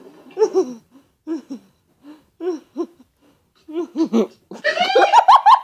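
Short bursts of stifled, gasping laughter, breaking into high-pitched laughing near the end.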